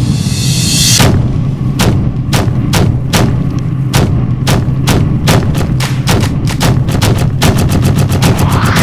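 Electronic soundtrack music building up: a steady bass under a run of sharp drum hits that come faster and faster, with a rising sweep near the end.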